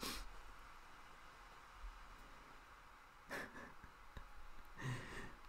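Quiet room tone with three faint breaths from a person close to the microphone: one at the start, one about three and a half seconds in, and one near the end.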